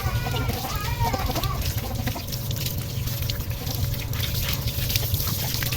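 Water running and splashing steadily as a motorbike engine is washed clean.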